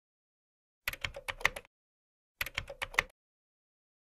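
Three short runs of rapid, sharp clicks, five or six clicks each, lasting under a second and repeating about every second and a half, with dead silence between them.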